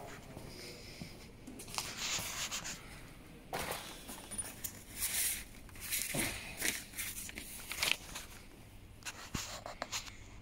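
Old paper sheets rustling and crinkling in irregular bursts as they are handled and leafed through.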